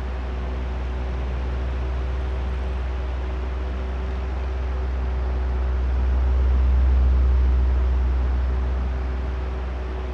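Oscillating electric fan running steadily: a low motor hum under the rush of air, swelling and fading slowly as the fan head turns back and forth, loudest about seven seconds in.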